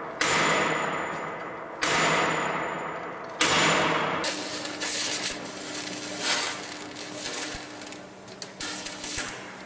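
Three heavy hammer blows on the Tiger tank's steel gun, about a second and a half apart, each ringing and echoing as it fades, struck to knock the cannon back down. Lighter irregular knocks follow over a faint steady hum.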